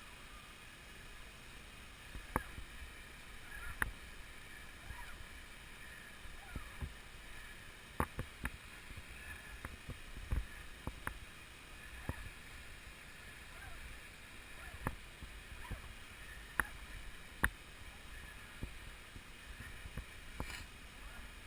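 Irregular sharp clicks and knocks, one every second or two, over a low steady hiss.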